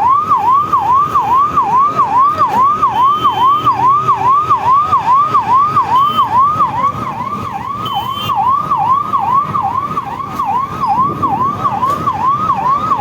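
Emergency vehicle siren sounding in a fast, evenly repeating yelp, about two and a half sweeps a second, loud and unbroken, over low road-traffic rumble.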